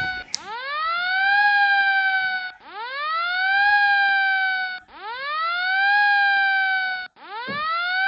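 Electronic siren alarm of a seat-belt warning simulation, sounding because the driver is present, the ignition is on and the belt is not buckled. Each wail rises quickly, falls slowly and cuts off, and it repeats about every two and a quarter seconds, four times.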